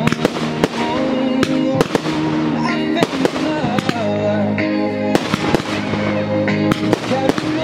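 Fireworks bursting and crackling in quick succession over music playing: a fireworks display set to a soundtrack.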